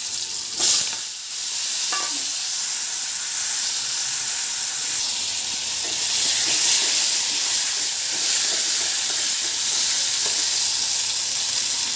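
Sliced potatoes frying in hot oil in a non-stick kadhai, sizzling steadily, with a louder burst of sizzle under a second in as the slices go into the oil. A wooden spatula stirs them.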